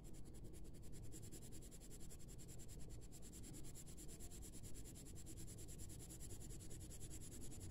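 Grey coloured pencil shading on paper: faint, continuous scratching of the pencil strokes.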